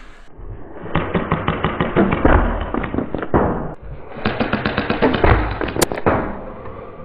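Foam dart firefight: a rapid clatter of shots and dart hits, about ten a second, in two long runs with a short break between them, and a single sharp crack near the end.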